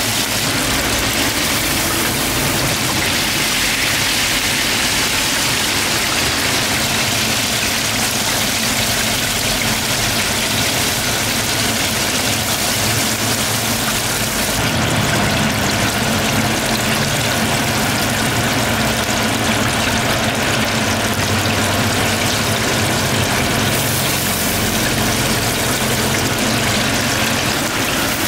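Battered jumbo squid deep-frying in a fryer of hot oil: a steady sizzle and bubbling, with a steady low hum beneath it.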